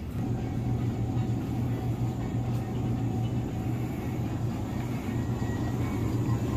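Steady low electrical hum over a rough, uneven rumble, the background of a supermarket aisle lined with refrigerated dairy cases.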